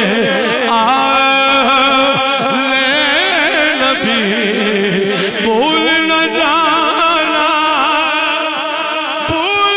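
A man singing a devotional kalaam solo into a microphone, in an ornamented style with rapid wavering runs, then long held notes through the second half.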